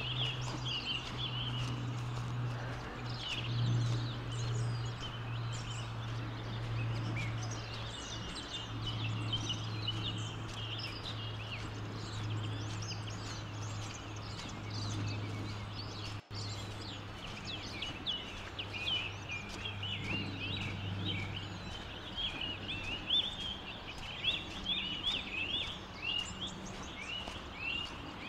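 Many small birds chirping and twittering on and off, over a steady low hum that fades out about three-quarters of the way through. Footsteps on the trail become more noticeable near the end.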